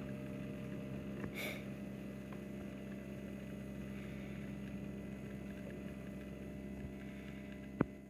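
Spinn coffee maker running steadily, a motor hum with low steady tones as its centrifugal brewer spins and pushes out espresso. A single sharp click near the end.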